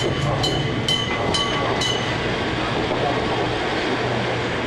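Kumamoto Electric Railway 5000 series train running along the line, a steady rumble with a low hum. A level-crossing warning bell rings a few times, about two strikes a second, in the first two seconds as the train passes the crossing.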